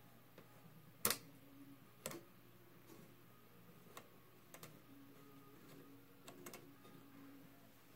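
Faint, scattered clicks and ticks from the tuning shaft and two-speed vernier dial drive of a 1934 RCA 128 radio chassis being worked by hand. The loudest click comes about a second in.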